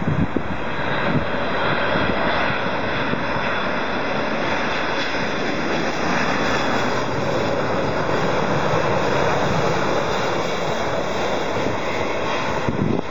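Jet engine noise from a Boeing 747-400's four turbofan engines as the airliner passes low overhead on landing approach with its gear down. The sound is a steady, dense rush that holds at an even level throughout.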